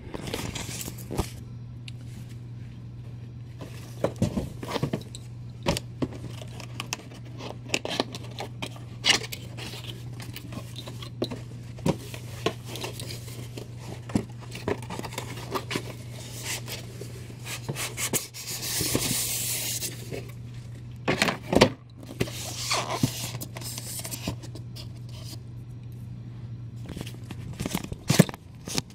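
Cardboard and plastic packaging of a NECA Predator Throne diorama box being handled and opened: scraping, rustling and scattered knocks over a steady low hum, with a longer scrape about two-thirds of the way through.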